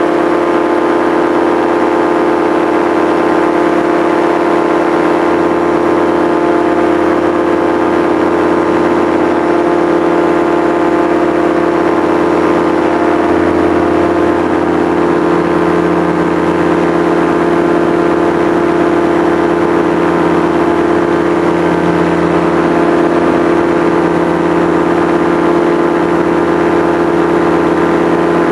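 Engine and propeller of a small powered aircraft in flight, running at a steady cruise setting: an even, unbroken drone with a strong low hum that holds its pitch throughout.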